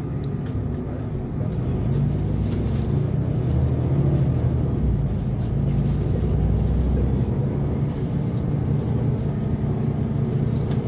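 Mercedes-Benz Citaro G NGT articulated natural-gas bus heard from inside while driving: its six-cylinder gas engine runs steadily under load over a low road rumble, swelling a little about halfway through.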